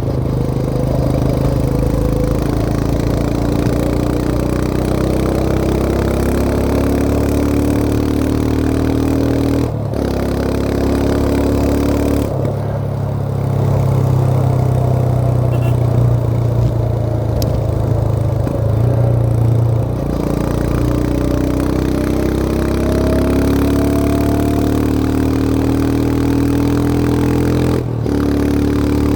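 Royal Enfield Himalayan 411's single-cylinder engine pulling a motorcycle with a pillion, its pitch climbing steadily through each gear. There are short dips at gear changes about ten seconds in, about twenty seconds in and near the end.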